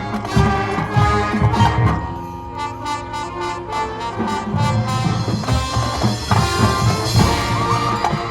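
Marching band playing: brass holding chords over drums, with the low drums dropping out for a couple of seconds mid-way before coming back in.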